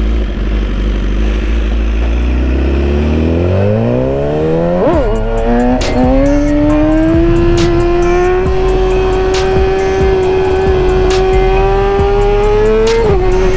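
BMW S1000RR inline-four through a Racefit exhaust, pulling away and accelerating hard, with a gear change about five seconds in, then holding a nearly steady cruising rev until the pitch drops near the end. Wind rumble on the microphone runs underneath.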